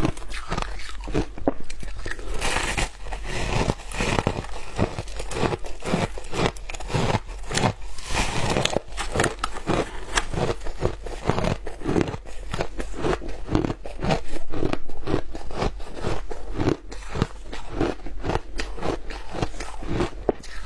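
Packed shaved ice crunching as it is bitten and chewed close to the microphone: a rapid, continuous run of crisp crunches.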